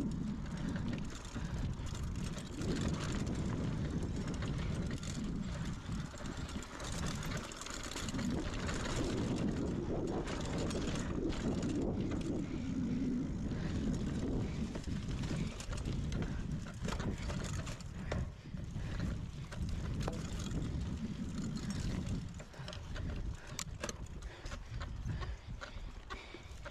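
Mountain bike ridden along a dirt singletrack through tall grass, heard from a bike-mounted camera: a continuous low rumble of wind and tyre noise, with frequent rattles and clicks from the bike over bumps.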